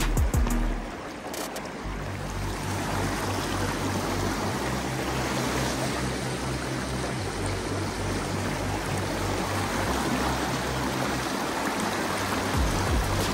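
Steady rushing of flowing river water, with background music whose low bass notes change every second or so.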